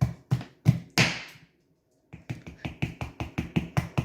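Knife chopping mushrooms on a cutting board: quick, even taps about five or six a second. There is a brief hiss about a second in, then a short break before the chopping resumes.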